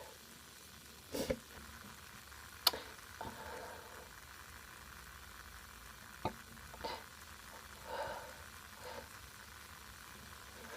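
Faint breaths and small mouth clicks against a steady low hiss. The loudest are two soft breaths just over a second in, with a sharp click a little under three seconds in and another after about six seconds.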